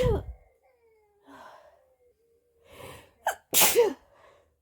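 A person sneezing: the end of one sneeze right at the start, then drawn-in breaths, then a second loud sneeze about three and a half seconds in.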